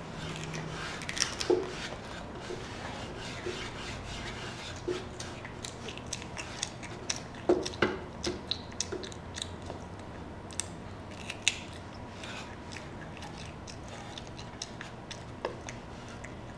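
A small child biting and chewing raw broccoli florets: irregular crisp crunches and mouth clicks. They are loudest about a second in and again around seven to eight seconds in.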